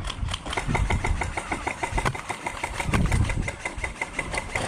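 Airsoft gun firing full-auto: a steady, rapid run of shots, about nine a second.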